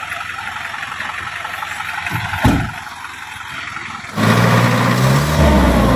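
A steady rumbling hiss with one thump about two and a half seconds in, then, after an abrupt jump in loudness about four seconds in, an Isuzu NPR truck's diesel engine revving up and down as the truck strains to drive out of deep mud.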